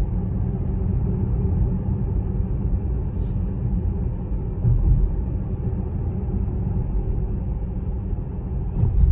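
Steady low rumble of tyre and road noise inside the cabin of a Tesla Model S P100D cruising at about 50 km/h, with no engine sound from the electric drive.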